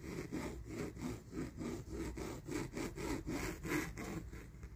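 Stainless-steel claw-hand back scratcher scraping back and forth in even rasping strokes, about three a second.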